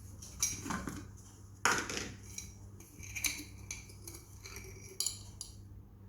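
A spoon clinking and scraping against a bowl in a series of separate knocks and scrapes, as salt is added and stirred into semolina idli batter. A faint steady low hum runs underneath.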